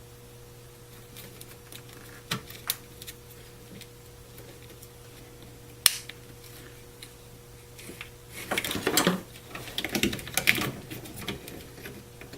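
Small plastic parts of an instrument-cluster wiring connector being handled, with scattered light clicks. A sharp single click comes about six seconds in, and a busy run of clicking and rattling follows near the end, over a steady low hum.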